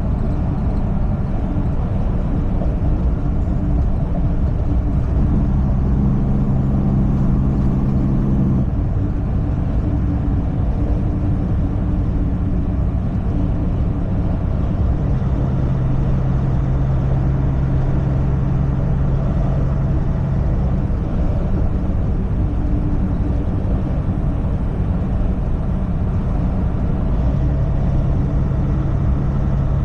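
Semi-truck driving at steady speed: a continuous low drone of engine and road noise, with an engine hum that grows stronger for a few seconds at a time, most plainly about a third of the way in and again in the middle.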